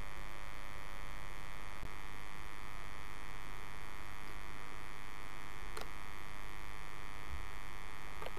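Steady electrical hum with many tones at once, mains hum picked up by the recording chain, with a few faint clicks.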